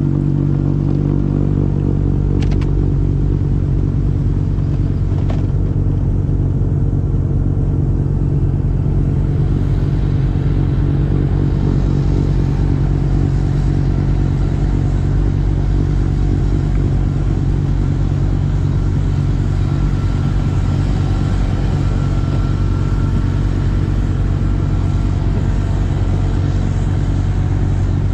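Trackless MT6 sidewalk tractor's engine running steadily under load as it drives its snowblower. Over it is a hiss of snow being thrown, which grows stronger partway through.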